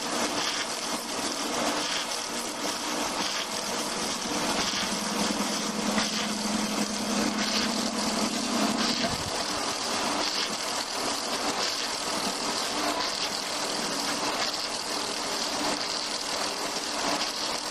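Log-turning wood lathe running, its cutter shaving a turning log: a steady machine drone with a hissing cut. A lower hum holds for a few seconds and stops about nine seconds in.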